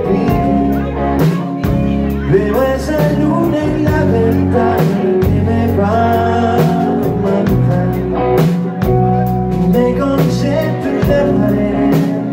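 Live band playing a song with drum kit and electric guitar, loud and continuous.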